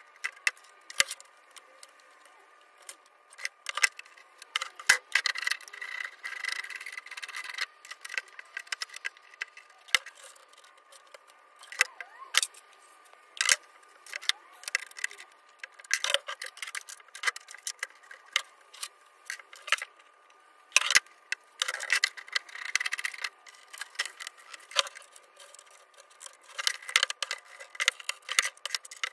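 Irregular sharp metallic clicks and clinks with short bursts of scraping: small parts and hand tools being handled and worked, over a faint steady hum.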